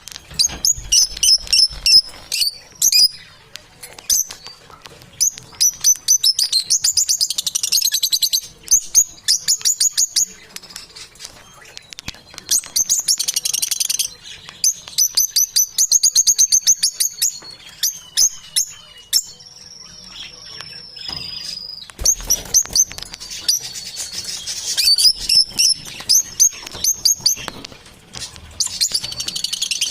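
Birds chirping in fast, high trills of quickly repeated notes, coming in runs of a few seconds with short gaps, and one long steady whistle about two-thirds of the way through.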